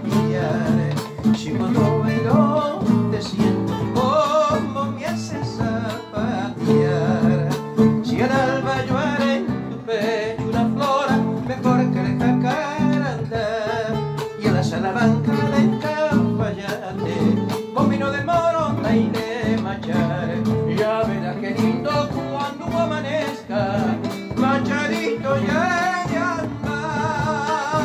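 Two nylon-string classical guitars playing an instrumental passage of an Argentine folk song, with a drum struck with a stick keeping the beat.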